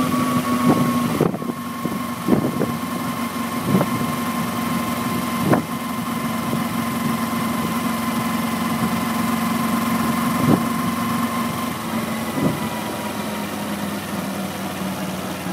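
Kawasaki Ninja 250R's parallel-twin engine running steadily under way, heard from on the bike with rushing wind noise. The engine note sinks slowly in pitch, and a few short knocks are heard along the way.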